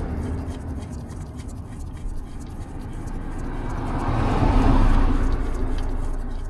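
Used engine oil pouring from the oil pan drain hole into a drain pan just after the drain plug is pulled, a steady stream that swells about four seconds in and then eases.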